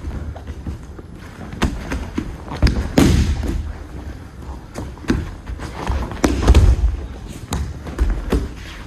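Irregular thuds and slaps of bodies taking aikido break-falls onto the mat, several in a row, the heaviest about three seconds in and again past six seconds.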